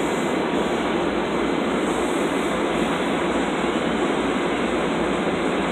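LIRR M3 electric multiple-unit train running at the platform, giving a steady rushing rumble with no distinct clicks or horn.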